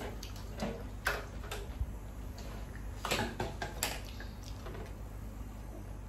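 Eating at a table: scattered sharp clicks of a spoon against a plate with soft crunches, bunched in the first four seconds and sparser after.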